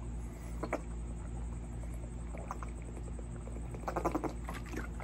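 Drinking from a plastic water bottle: a few short swallowing sounds and clicks, with a small cluster of them about four seconds in, over a steady low hum.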